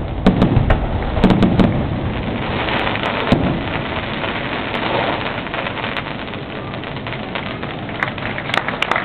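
Fireworks display: a few deep booms of shells bursting in the first two seconds, then a dense, steady crackling of crackle-star effects, with sharp cracks coming thicker near the end.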